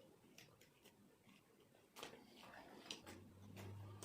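Quiet eating sounds: faint, scattered mouth clicks and smacks of someone chewing food, with a low hum coming in near the end.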